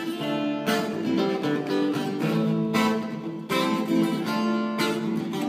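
Acoustic guitar strumming chords between sung lines of a song, with sharp strokes roughly once a second.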